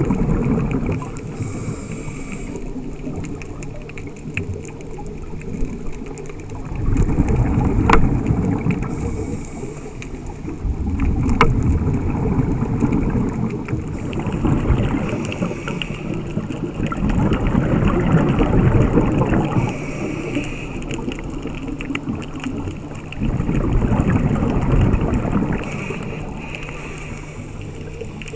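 Scuba diver's regulator underwater: exhaled bubbles swell up and die away every five to six seconds with each breath, over a steady low hum.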